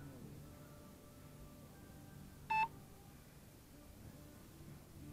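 A single short, high electronic beep about halfway through, from an FPV drone's beeper that repeats every two to three seconds, over a faint low hum.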